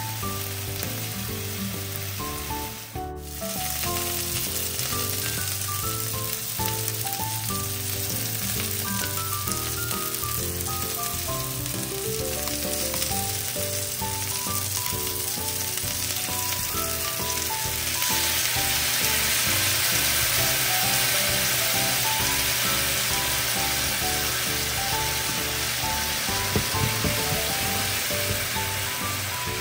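Chicken-and-leek yakitori skewers sizzling in a frying pan. The sizzle grows louder about two-thirds of the way through, under light background music.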